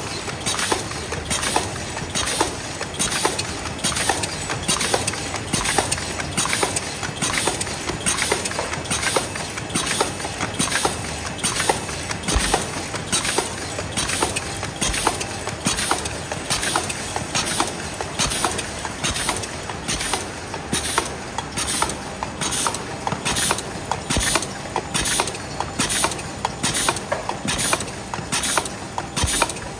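WT22 double-wall paper cup machine running at production speed, its forming mechanisms clacking in an even rhythm about one and a half times a second over steady machine noise.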